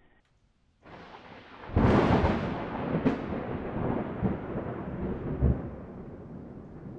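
Outro sound effect: a rising rush, then a sudden loud boom that rolls on as a long, slowly fading rumble, with a second sharp crack about a second after the first and a few deeper thumps in the tail, like a thunderclap.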